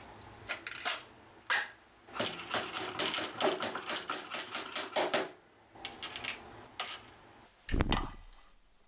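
Small metal hardware (bolts, washers and wing nuts) clicking and rattling as it is handled and fitted into a plywood fence bracket, with a fast run of clicks in the middle. A louder dull thump comes near the end.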